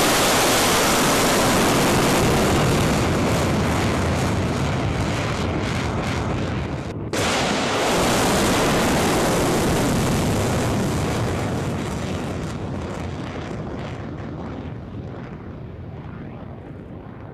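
Ballistic missile rocket motor at launch from a railway launcher car: a loud, steady rush of noise. It drops out for an instant about seven seconds in, then fades over the last few seconds as the missile climbs away.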